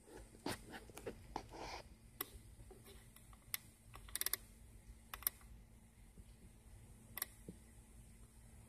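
Quiet, irregular clicks of buttons being pressed on the keypad of a Ford New Generation Star diagnostic tester as its menu is scrolled, with a quick run of several clicks about four seconds in.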